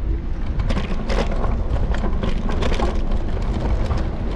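Heavy low rumble of wind and road noise picked up by a handlebar-mounted camera on a moving electric scooter, with many short clicks and rattles scattered through it.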